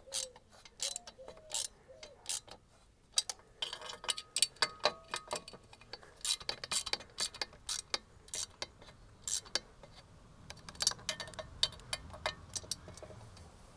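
Ratchet wrench clicking in short runs as nuts are tightened down onto a gasket, with a brief pause about three seconds in.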